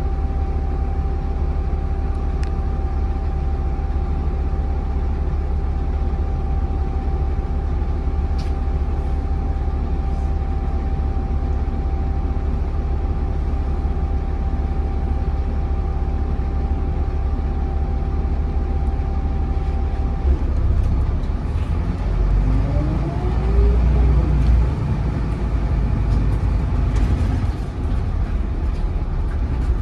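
Volvo B7RLE bus's six-cylinder diesel engine ticking over steadily with a constant hum, heard from inside the saloon. About two thirds of the way in it pulls away: the engine note strengthens and a whine from the ZF automatic gearbox rises, then drops as it changes up.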